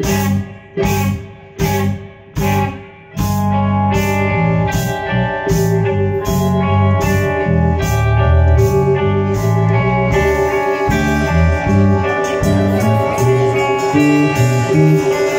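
Live band with electric guitars and drum kit playing an instrumental passage: four loud hits together about a second apart, then guitar and bass playing on over a held note, with cymbals coming back in about ten seconds in.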